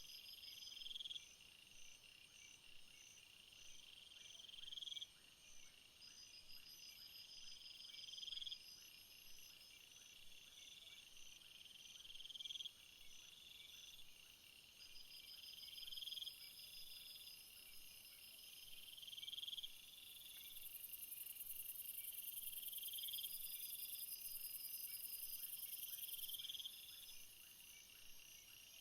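Night insect chorus: crickets chirping in fast pulsed trills, with one call that swells and cuts off sharply about every three and a half seconds. A high, thin buzz joins for several seconds in the middle.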